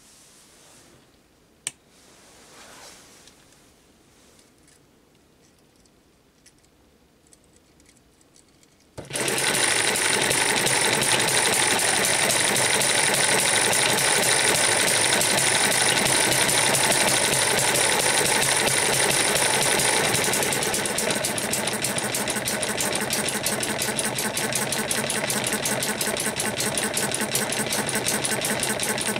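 A single click, then about nine seconds in a 12 V DC motor spins an Eachine ET1 model hit-and-miss gas engine through a belt and the engine runs with a fast, even mechanical clatter. Around twenty seconds in the sound drops a little and a steadier beat comes through as the engine runs on, turning the DC motor as a generator that lights a bulb.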